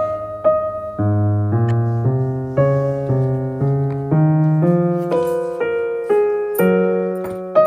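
Background music: a gentle piano tune, one note or chord about every half second.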